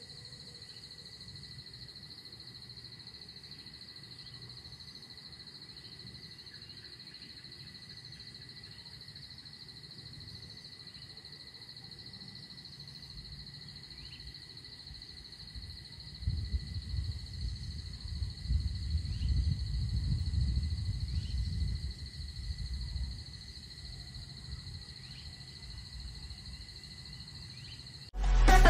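Insects trilling steadily in a high, continuous chorus. From about halfway through, a low rumble swells for several seconds and fades. Loud electronic music cuts in suddenly at the very end.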